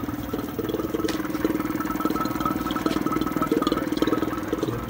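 Old belt-driven electric vacuum pump running, a fast, even pulsing with a steady whine above it, as it pulls a vacuum on a car's air-conditioning system after a compressor swap.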